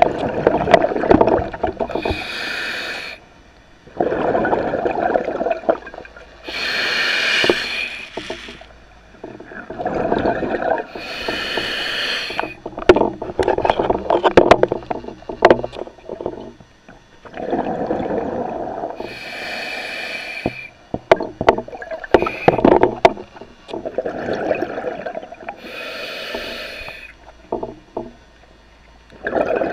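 A scuba diver breathing through an open-circuit regulator underwater, about five breaths: each inhalation is a short hiss, and each exhalation is a longer rumble of bubbles, with scattered sharp clicks and crackles.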